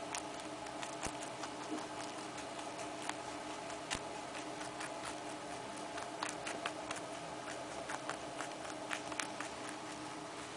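Baby rabbit nibbling a piece of carrot: quick, irregular crunching clicks, several a second, over a steady background hum.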